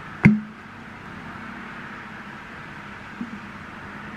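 Plastic protein shaker bottle's flip cap snapping open with one sharp click, followed by a low steady hum and faint hiss, with a small tick about three seconds in.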